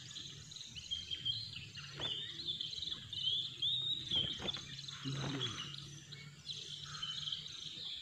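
Oriental magpie-robins singing: a continuous run of quick, varied chirps and whistles, with a few short rustling thuds around the middle as a tethered magpie-robin flutters on the grass.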